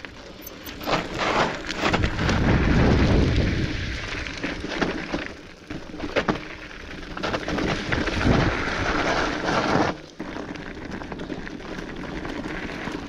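Electric mountain bike riding over a rough, loose slag trail: tyres crunching, the bike knocking and rattling over bumps, with wind rumbling on the handlebar-mounted microphone. The noise drops off suddenly about ten seconds in to a softer, steady rush.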